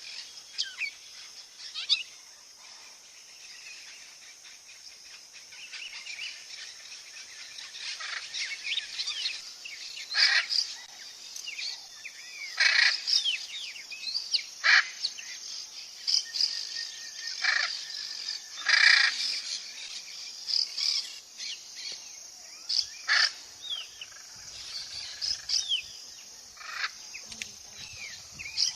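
Several wild birds singing and calling together, many short high chirps and whistles over a steady high hiss, with a few loud, harsh calls through the middle.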